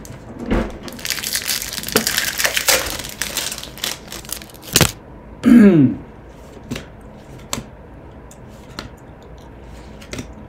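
A Topps baseball card pack's wrapper torn open and crinkled for a few seconds, ending in a sharp click. Then comes a short, loud sound falling in pitch, followed by a few light ticks as the cards are handled.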